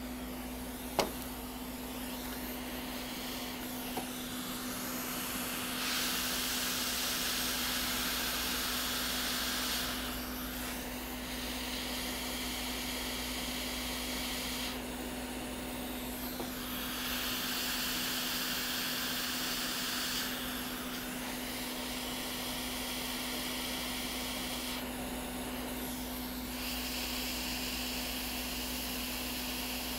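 Hot air rework station blowing at its highest airflow: a steady rushing hiss over a low hum. The hiss grows louder for several seconds at a time and eases off in between, and there is a single sharp click about a second in.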